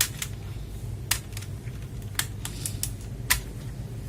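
Scattered sharp clicks, about eight at uneven intervals, as an HP GK400Y mechanical keyboard is handled and turned over, over a low steady hum.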